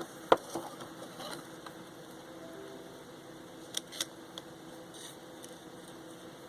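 A few sharp clicks and light taps of zip ties and small parts being handled while fitting them through holes in a circuit board, over a faint steady hum. The loudest click comes just after the start, with two more close together about four seconds in.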